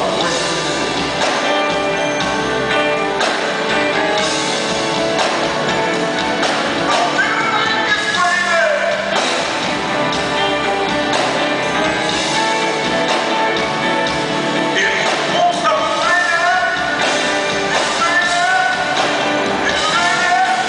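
Live band music: a hollow-body electric guitar and keyboard playing a slow soul-jazz ballad, with a wavering lead melody line that comes and goes.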